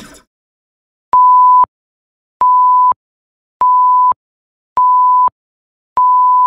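Electronic beeps: five identical steady single-pitch tones, each about half a second long and a little over a second apart, starting and stopping sharply.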